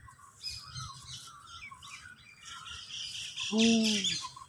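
Songbirds chirping and calling in the trees, a busy mix of short high chirps and whistles. About three and a half seconds in, a person gives a brief, louder voiced sound.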